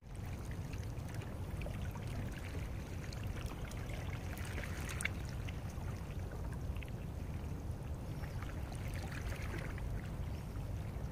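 Shallow seawater lapping and trickling at a rocky shoreline, over a steady low rumble, with faint scattered ticks.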